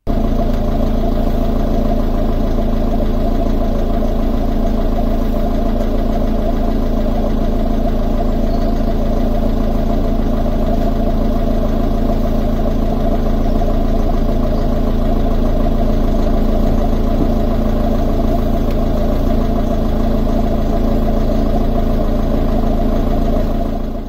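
Car engine idling steadily.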